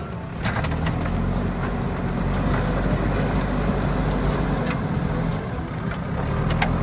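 Heavy diesel engine running steadily at low revs, with a few faint clicks.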